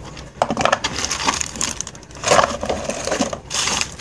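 Wooden chew treats and their packets being handled and dropped into a cardboard box, making several separate bursts of rustling and knocking.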